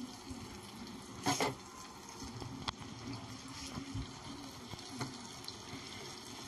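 Mixed vegetables frying in a masala in a non-stick pan and being stirred with a spatula: a low sizzle with a few scrapes and knocks of the spatula, the loudest about a second in.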